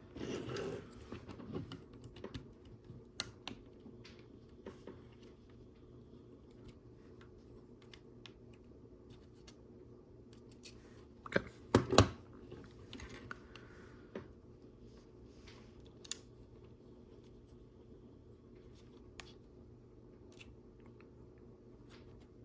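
LEGO pieces being handled and snapped together: scattered small plastic clicks and rustles. There is a cluster at the start and one louder knock about twelve seconds in.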